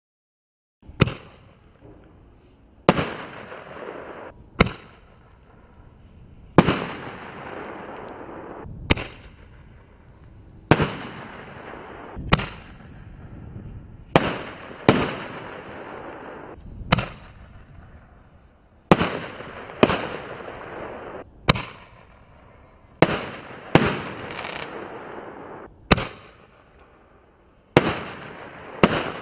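A 1.9-inch consumer fireworks cake firing its shots one after another, starting about a second in. There are about eighteen sharp bangs, usually one to two seconds apart and sometimes in quick pairs, each followed by a noisy tail that fades before the next.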